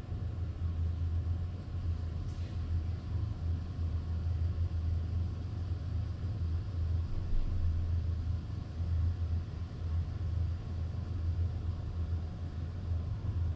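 Honda Grom 125's single-cylinder engine running with a steady low rumble, and a single short click about two seconds in.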